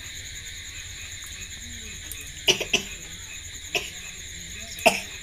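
Crickets chirping steadily in a fast pulsing trill, broken by four short sharp sounds in the second half, the loudest near the end.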